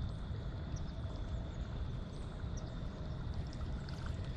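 Steady outdoor background noise, mostly a low rumble, with a faint steady high-pitched tone over it and a few tiny ticks.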